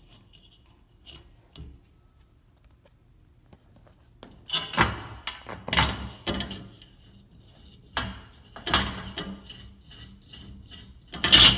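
Screws and hands scraping and rubbing against a metal closet top rail as the screws are turned in by hand. After a quiet start there are four or five short scraping bursts a second or two apart, the last one the loudest.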